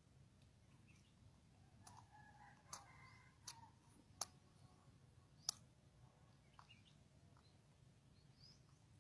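Near silence with faint bird chirps and four sharp, single clicks spread through the middle, the last one the loudest.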